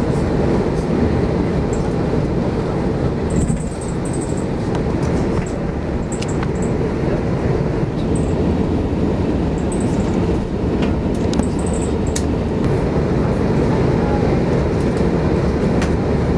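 Steady low cabin rumble of an Airbus A340-600 taxiing on the ground, its four Rolls-Royce Trent 500 engines running, with a few light ticks and rattles.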